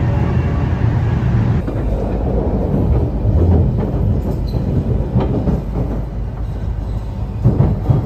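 Cabin running noise of a Joetsu Shinkansen Toki bullet train at speed: a steady low rumble with a few faint clicks from the track. The higher hiss drops away about a second and a half in.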